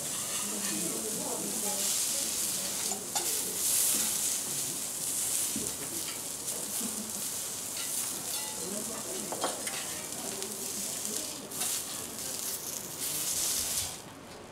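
Food sizzling on a teppanyaki griddle, a steady hiss with a few sharp clicks of metal utensils; the sizzle drops away near the end.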